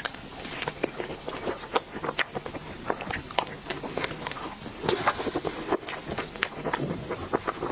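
Close-miked eating sounds of someone chewing dessert: a steady run of irregular small clicks and crunches from the mouth.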